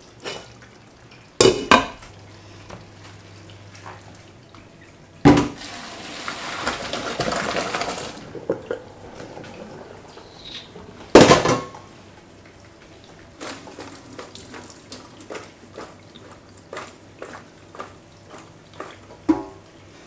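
A stainless steel pot of boiled pasta shells knocking and clanking, with a rush of hot pasta water poured out into a colander in a steel sink for about two seconds, five seconds in. A loud metal clank comes near the middle, with smaller knocks and clicks afterwards.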